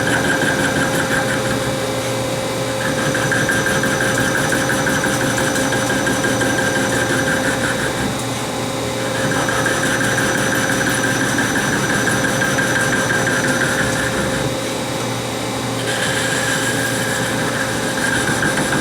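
Hardinge Conquest SB CNC lathe machining a saw-cut part to clean it up: a steady machine hum with one clear tone, and a higher hiss that starts and stops in four stretches of a few seconds each as the cutting goes on.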